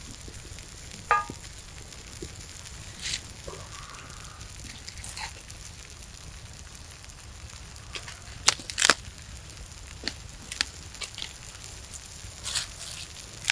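Campfire crackling, with scattered sharp pops, the loudest a cluster about eight and a half to nine seconds in. A short ringing clink about a second in.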